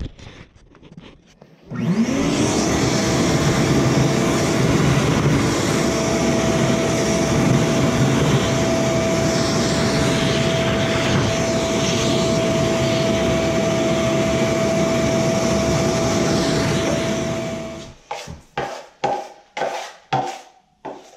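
A vacuum cleaner starts about two seconds in, spinning up, then runs steadily with a whine while picking up broken drywall debris from a tile floor, and shuts off near the end. It is followed by quick, rhythmic scraping of a knife in a metal mud pan, mixing drywall joint compound.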